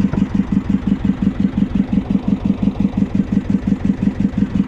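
Fishing boat's engine idling, a steady rhythmic throb of about seven beats a second.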